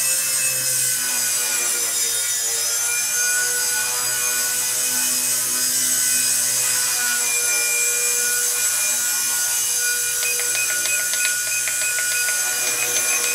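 WLtoys V988 flybarless micro RC helicopter in flight, its electric rotor motors making a steady whine whose pitch drifts slightly with throttle. About ten seconds in, a quick run of short beeps joins it: the transmitter's trim button being pressed repeatedly to add forward trim.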